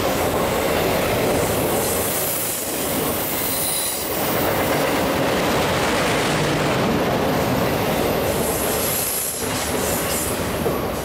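Autorack freight cars rolling past on steel wheels, a steady rumble and clatter from the rails. A thin, high wheel squeal comes and goes over it.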